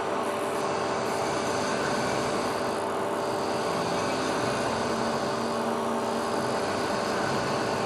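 Matsuura MC600VF vertical machining centre running with a steady whine of several fixed tones over a constant noise: the servo noise that its owner reports as a problem.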